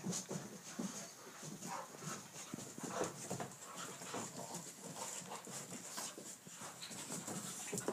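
Two dogs play-wrestling: panting and scuffling in a quick, irregular run of short sounds with occasional sharp clicks.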